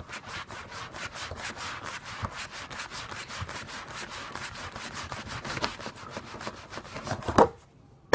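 Knife sawing back and forth through a wooden bowling pin in quick, even rasping strokes, several a second, ending with a sharp knock near the end.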